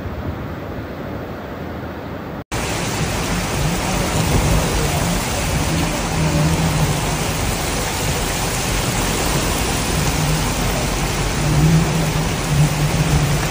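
A dense, steady hiss of rushing floodwater. About two and a half seconds in it cuts off for an instant and gives way to a louder hiss of heavy rain and water running over a flooded street, with a low hum underneath.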